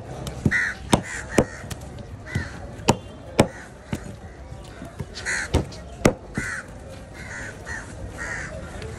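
Sharp knocks of a large knife striking a wooden cutting board as fish fins are chopped off, about once or twice a second and loudest near the start. Crows caw repeatedly throughout.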